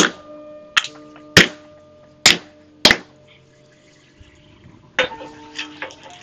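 Hammer blows on a hot mild steel plate lying in a wooden cupping stump: five sharp, ringing strikes in quick succession, dishing the plate for a coal shovel. From about five seconds in come lighter clinks and scrapes as the plate is pushed back into the coal forge.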